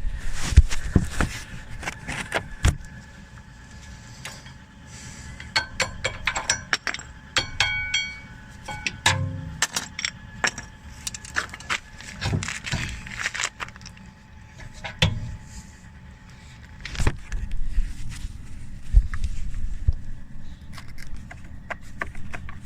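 Metal tools and brake parts clinking and knocking at irregular intervals, with a few short ringing metallic clinks about six to eight seconds in.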